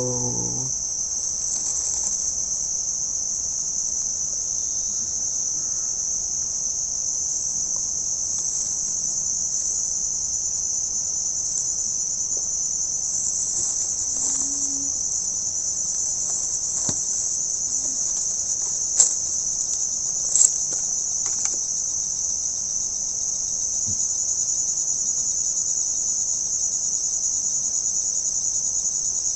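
Steady, high-pitched chorus of insects, with a couple of short sharp clicks about two-thirds of the way through.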